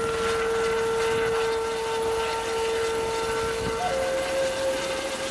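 Helicopter with a shrouded fenestron tail rotor lifting off from the pad: steady turbine and rotor noise with a whining tone that steps up in pitch about four seconds in.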